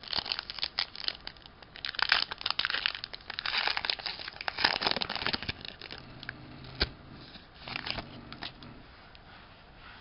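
Foil wrapper of a Pokémon Sun & Moon booster pack crinkling and tearing as it is pulled open by hand. The crackling is dense for the first six seconds, then thins to a few scattered crackles and a sharp click.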